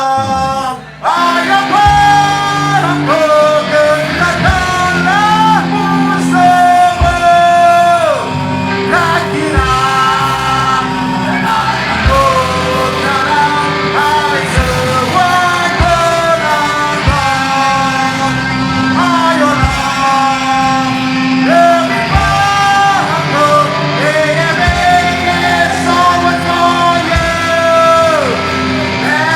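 A live punk rock band playing loudly: distorted electric guitars, bass and drums with sung vocals over them, starting up about a second in after a brief break.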